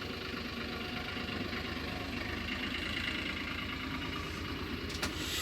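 Engine of work machinery running steadily at idle, with an even low pulse: the constant noise of nearby works.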